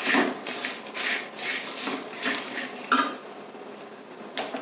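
Steel ladle scraping and stirring dry-roasted peanuts, grated coconut, dried red chillies and spices around an aluminium kadai, a scrape about every half second, easing off after about three seconds. Near the end, a single sharp click as the gas stove knob is turned.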